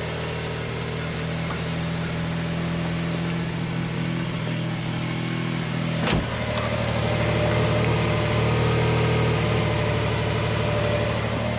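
A 2000 Toyota Sienna's 1MZ-FE V6 idling just after start-up, running rough with an intermittent misfire on cylinder 5 (code P0305). A brief sharp click about six seconds in.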